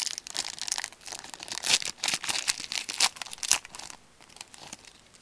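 Wrapper of a hockey trading-card pack being torn open and crinkled by hand, a dense crackling for about four seconds that then thins out to a few faint rustles.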